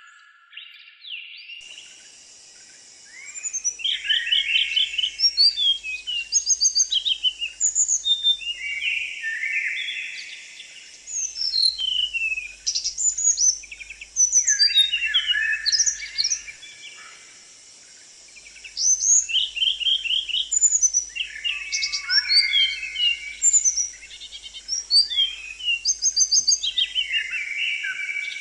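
A small songbird singing a fast, varied song of chirps, trills and quick sweeping notes, in bursts of several seconds broken by short pauses. Behind it runs a steady high hiss.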